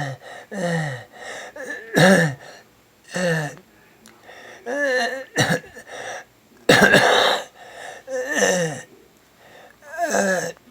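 A person's stridor: repeated harsh, pitched, wheezing breaths, about one a second, each falling in pitch, with a loud harsh burst like a cough about two-thirds of the way through. Stridor is the sign of a narrowed or partly blocked upper airway.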